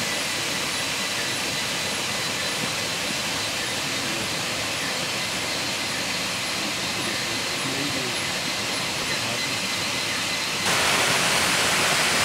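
Steady rush of a small jungle waterfall, growing louder near the end.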